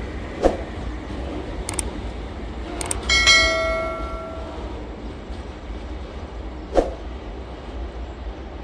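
Freight train of silo wagons rumbling steadily as it runs away down the track, with a couple of knocks from the wagons. About three seconds in, a mouse-click and notification-bell ding sound effect rings out and fades over a second or so.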